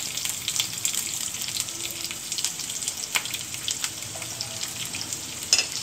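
Sliced onions sizzling in hot oil in a nonstick kadai, a steady hiss with scattered crackles and one louder click near the end.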